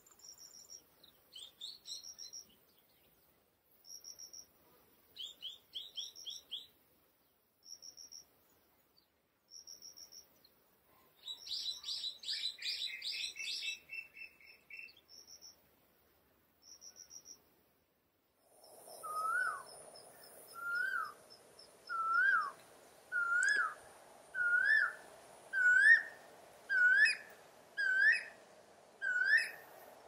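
Male Asian koel giving its escalating 'ko-el' call: a series of about ten loud two-part whistles, roughly one a second, each pitched higher than the one before, beginning about two-thirds of the way in. Before it, shorter high bird calls and a quick chattering series of notes.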